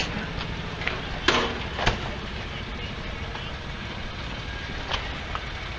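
Tractor engines idling, a steady low rumble, with two sharp knocks about a second in.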